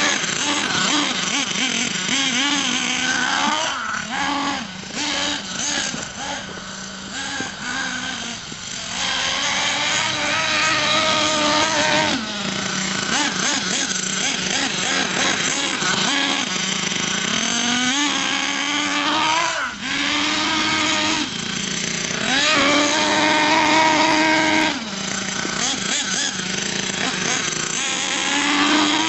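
Small nitro engine of a radio-controlled monster truck revving up and down again and again, its high whine rising and falling as the throttle opens and closes. It runs quieter and choppier for a few seconds early on before climbing back to long, full-throttle runs.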